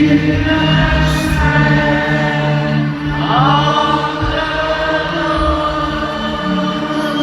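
Live gospel worship music: voices singing long held notes in a choir-like blend over sustained low instrumental notes, with one voice sliding up in pitch about three seconds in.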